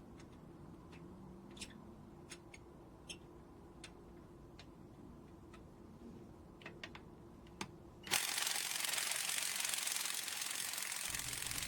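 A few faint clicks of handling, then about eight seconds in a cordless impact wrench starts hammering steadily on a rusted lug nut that it cannot break loose.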